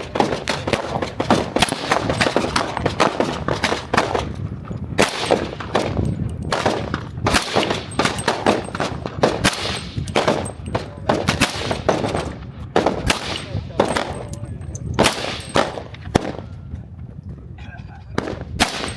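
Gunfire: many shots in quick succession, some in rapid strings, overlapping and echoing, with only a few short gaps, thinning out near the end.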